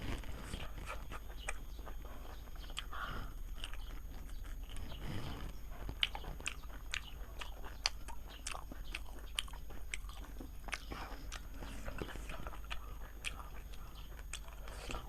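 A person eating close to the microphone: irregular bites, chewing and crunching, with many short crackles.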